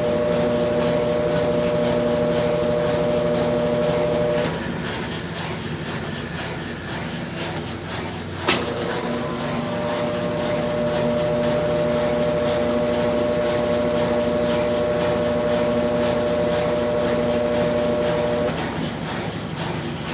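Brastemp Ative 10 kg top-loading washing machine on its rinse cycle: its motor runs with a steady hum, stops about four seconds in, a sharp click comes about eight seconds in, and the motor hums again until near the end.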